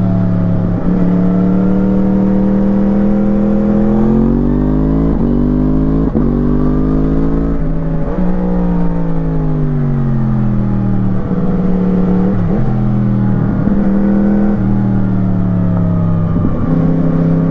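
2017 Yamaha MT-10's crossplane inline-four through an Akrapovič slip-on exhaust, heard from on board, pulling hard up through the gears with a brief break and drop in pitch at each shift. After a few seconds the pitch falls away in a long slide as the bike slows, then it picks up and changes gear again.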